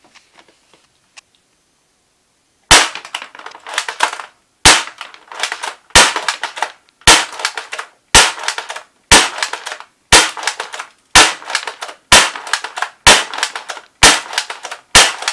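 Double Eagle M41G airsoft rifle, a G36 replica, firing single shots at a steady pace of about one a second. Twelve sharp cracks start nearly three seconds in, each followed by a short trailing noise.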